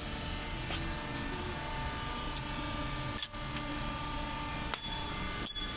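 Steady hum of a workshop, with a couple of isolated clicks and then a quick run of sharp clicks and knocks near the end.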